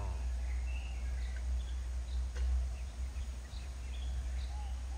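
Outdoor ambience: a steady low rumble with faint, scattered short bird chirps, and one light click a little past the middle.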